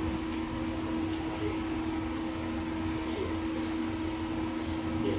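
Steady low hum of room noise with a constant faint tone, and a few faint soft ticks.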